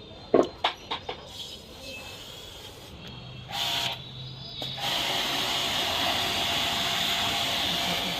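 A few sharp knocks, then a steady, loud hiss sets in about five seconds in.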